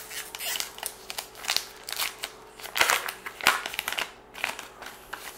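A trading-card pack's wrapper torn open and crinkled as the stack of cards is pulled out: a busy run of sharp crackles and rustles, loudest about three seconds in.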